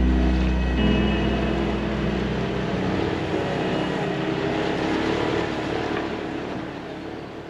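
Side-by-side UTV engine running with road noise as it drives a dirt track, fading out toward the end. The tail of a music track lingers for about the first second.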